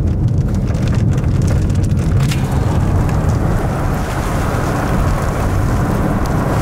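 Steady, loud rush of wind and road noise from a vehicle driving, heard from inside the car.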